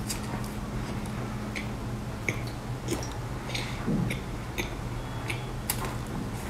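Close-miked mouth sounds of a person eating soft layered sponge cake: scattered small wet clicks and smacks of biting and chewing, over a steady low hum.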